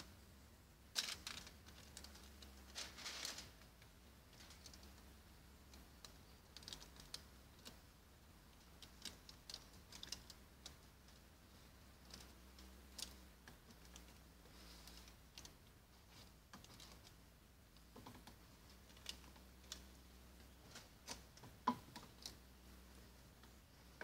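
Faint, scattered light clicks, taps and rustles of hand work on car window tint film, over a low steady hum.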